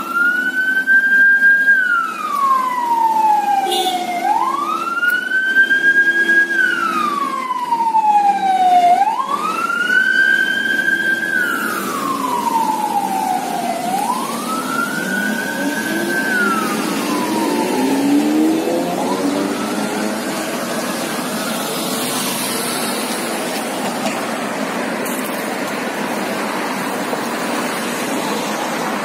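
Emergency-vehicle siren wailing, each cycle rising quickly, holding, then falling slowly, about every four and a half seconds. After four cycles it fades out a little past halfway, leaving steady traffic noise.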